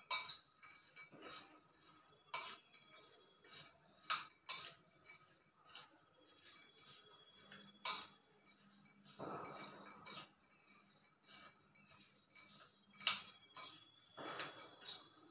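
A metal spoon stirring masala-coated roasted peanuts in a glass bowl, clinking against the glass at irregular intervals, each clink leaving a short high ring. Twice the stirring becomes a longer scraping rustle of the nuts.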